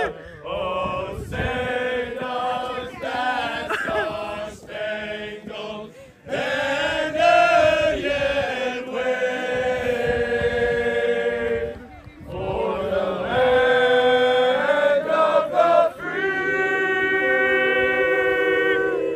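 A group of people singing together in unison outdoors, a chant-like song with long held notes. The singing breaks off briefly about twelve seconds in, then resumes with sustained notes.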